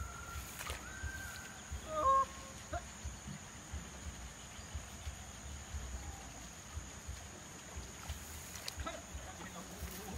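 Quiet open-field ambience: wind buffeting the microphone with a low rumble, under a steady high-pitched whine. A few short whistled notes sound in the first two seconds.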